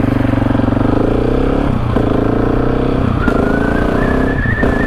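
Husqvarna 701's single-cylinder engine accelerating hard through the gears. Its exhaust note rises in pitch and drops back at each of three upshifts, about two, three and four and a half seconds in.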